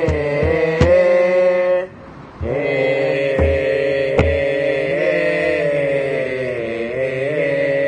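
Thai royal barge chant (kap he ruea): a chorus of male voices holds the long drawn-out refrain between verses, broken by a short pause about two seconds in, with a few low drum beats.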